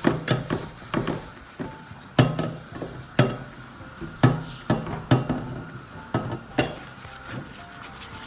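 Sheets of phyllo pastry being laid and pressed into a metal baking tray: a dry rustling of the pastry with irregular sharp knocks of hands and pastry against the tray, which die away near the end.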